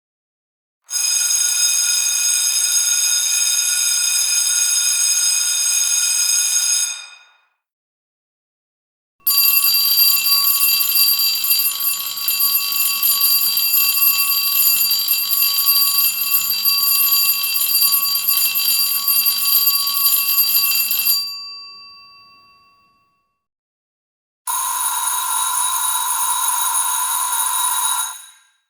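Electric school bells ringing continuously, three separate rings: one of about six seconds, a longer one of about twelve seconds whose bell rings on briefly after the ringing stops, and a shorter one of about four seconds near the end.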